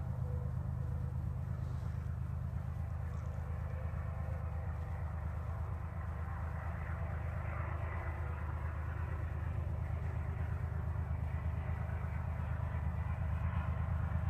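Diesel locomotive engine working under load up a steep 18‰ grade, a steady low drone heard from aboard the slowly moving train, with the rumble of wheels on rail. The drone grows a little louder near the end.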